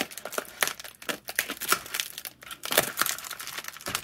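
Clear plastic parcel wrapping crinkling as it is cut and pulled open by hand, a run of irregular crackles, loudest about three seconds in.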